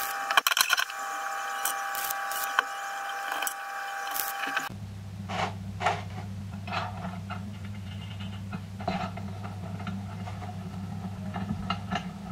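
Stick (arc) welding: the electrode's arc gives a steady crackling buzz that cuts off abruptly about five seconds in. After that, a low steady hum carries scattered light metallic clicks and knocks as steel angle pieces are set in the homemade clamp and its screw is turned.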